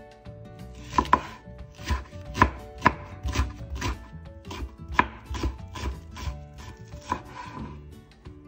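Chef's knife slicing the white stalk of a Korean green onion on a bamboo cutting board: a run of irregular knife taps on the board, starting about a second in and stopping near the end.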